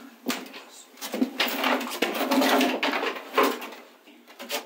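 Scattered light knocks, bumps and shuffling of a person moving about and leaning on the panels of a small fiberglass compartment.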